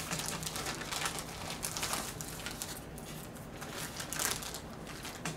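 Faint crinkling and rustling of plastic packaging as the tripod's small accessory hardware is unwrapped and handled, busiest in the first two seconds and then sparse.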